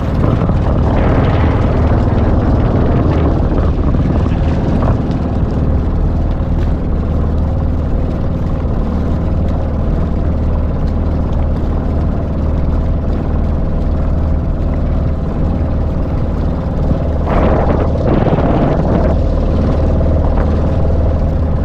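Small boat's engine running steadily as the boat moves over shallow water, a constant low drone with water rushing beneath it.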